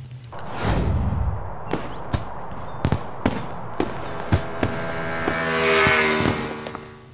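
Fireworks going off: a deep boom, then a string of sharp bangs and crackling that swells near the end.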